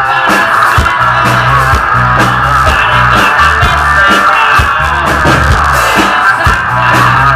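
Rock band playing: electric guitar, bass guitar and drum kit, with held bass notes under a steady drum beat.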